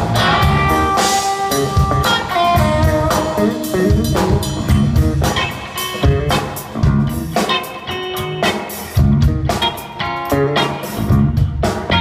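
Live instrumental blues trio: a Telecaster-style electric guitar playing single-note lines over bass guitar and a drum kit keeping a steady beat.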